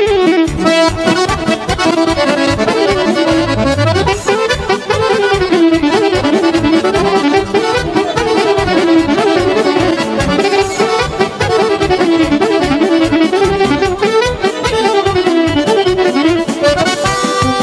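Live Serbian folk band music led by an accordion playing a fast, winding melody over a quick steady beat, a kolo dance tune.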